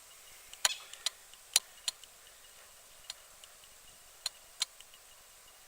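About seven sharp clicks and taps, short and unevenly spaced, loudest in the first two seconds.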